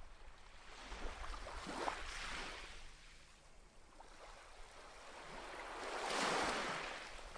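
Sea waves washing in two swells, the second, near the end, louder than the first.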